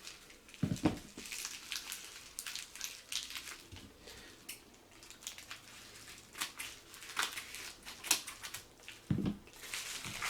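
A package being torn open and crinkled by hand in irregular crackling strokes, with a dull bump about a second in and another near the end.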